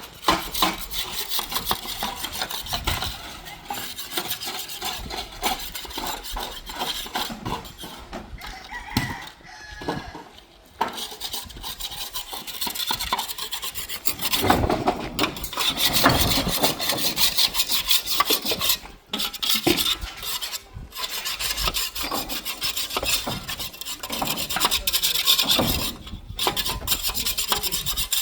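Continuous rough scraping and rasping that breaks off briefly a few times.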